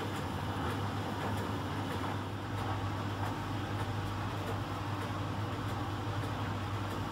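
Miele Professional PT 7186 XL commercial tumble dryer running mid-cycle: its drum turns the load of rags over, and the heating blower fan gives a steady rushing hiss over a constant low motor hum.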